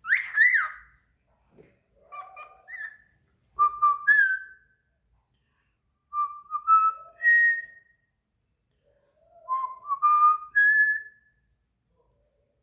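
A caged songbird singing in clear whistled phrases, about five short phrases of a few notes each with pauses between them, several ending on a rising note; the first opens with a sharp high chirp.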